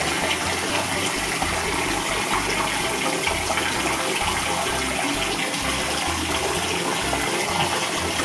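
Wall-mounted bathtub mixer tap running, water pouring steadily into the bath.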